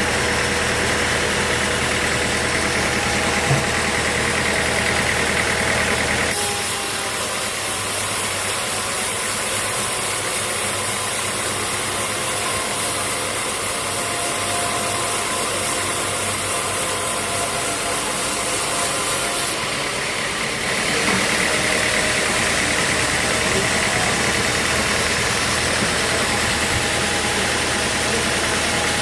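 Sawmill machinery running with a steady mechanical drone; its tone shifts abruptly to a thinner, hissier sound about six seconds in and back again near twenty seconds in.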